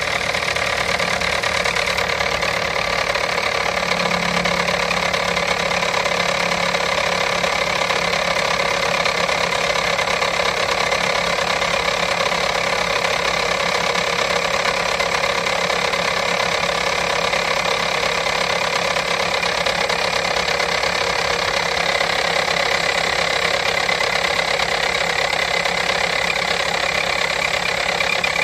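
Volkswagen-group CWVB 1.6-litre four-cylinder petrol engine idling steadily, carrying an extraneous noise that the owner regards as abnormal.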